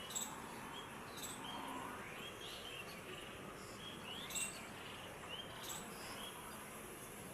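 Faint, short bird chirps scattered over a steady background hiss, with a few sharp clicks, the loudest about four seconds in.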